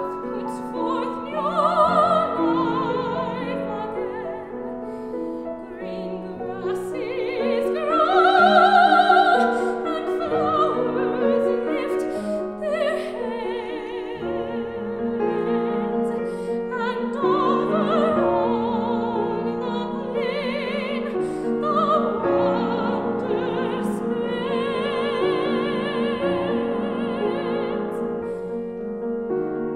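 Classical soprano voice singing an art song with vibrato, accompanied by a Steinway grand piano. The phrases swell and fall, the loudest coming about eight seconds in.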